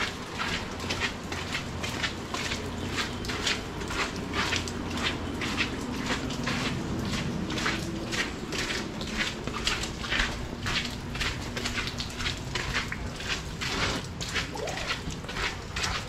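Footsteps at a steady walking pace, about two sharp steps a second.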